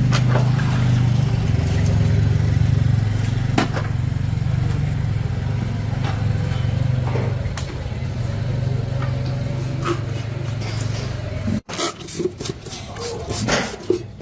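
A steady, low machine hum that cuts off suddenly near the end, followed by a run of clicks and light knocks.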